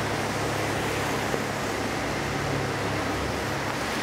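Steady outdoor background noise: an even hiss over a low, constant hum, with no distinct events.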